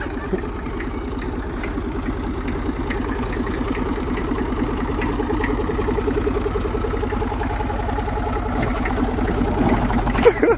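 Old tractor's engine running steadily at low speed while the tractor is driven.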